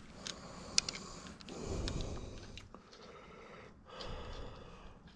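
Quiet breathing close to the microphone, two slow breaths, with a few light clicks as small bike parts are handled.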